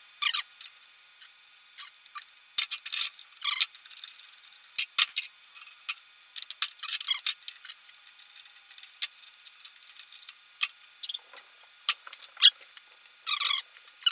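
Steel lathe change gears and tools being handled by hand: irregular sharp metallic clicks, clinks and short rattles as gears are pulled off their studs and set down on the steel chip tray, while the gear train is swapped to cut 13 threads per inch.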